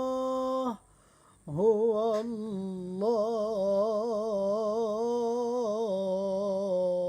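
A male voice chanting an Islamic ibtihal: a long held note breaks off under a second in and, after a short pause, returns in a long, ornamented phrase with vibrato that ends on a sustained note.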